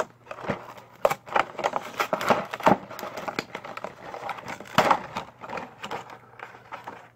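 Diecast car multipack box being handled and opened: irregular crinkling and crackling of packaging with scattered sharp clicks and knocks.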